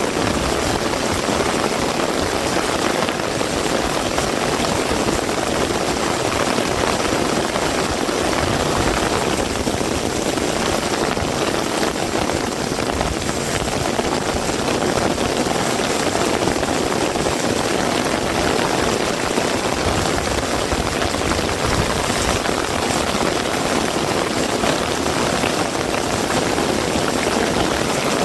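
Heavy rain falling steadily, an even hiss of rain on surfaces with no letup.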